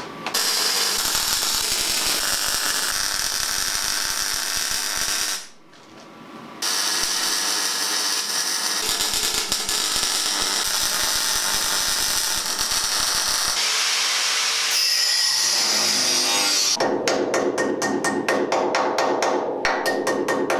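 Wire-feed (MIG) welder crackling and hissing as it lays weld on the steel Land Rover chassis, stopping briefly about five seconds in and then resuming. Near the end, a quick run of metallic strikes: a hammer on the steel.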